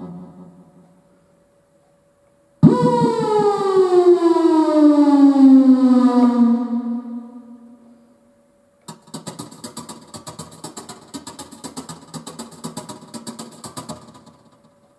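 Roland JD-Xi synthesizer playing: a note that starts suddenly and slides steadily down in pitch, fading over about five seconds, then after a short pause a rapid pulsing run of short notes for about five seconds.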